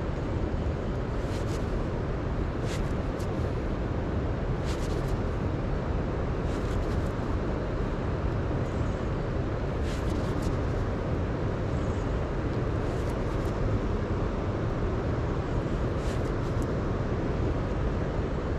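Steady low outdoor rumble, with faint light clicks at irregular intervals of one to three seconds.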